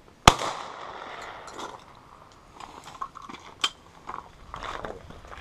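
A single shot from a Browning Silver Hunter 12-gauge semi-automatic shotgun about a third of a second in, with a trailing echo. A few lighter clicks and knocks follow over the next few seconds.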